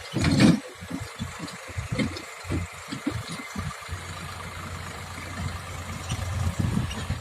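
Backhoe loader's diesel engine running, with a loud burst about half a second in; choppy for the first four seconds, then a steadier low hum.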